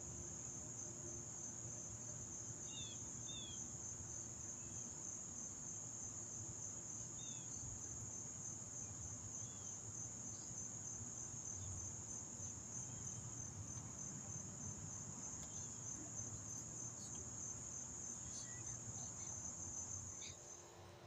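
A steady, high-pitched insect chorus: one continuous fast trill that holds level throughout and stops near the end. A few faint, short chirps come in the first several seconds.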